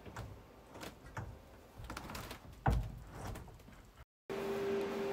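Door of a shielded test chamber moving, with light knocks and clicks and one heavy thump a little past halfway. After a brief dropout near the end, a steady hum begins.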